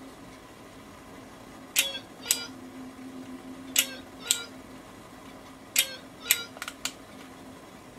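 A house-shaped novelty kitchen timer sounding its alarm: an electronic two-note cuckoo call, three times about two seconds apart, meaning the countdown has run out. A few light clicks follow near the end.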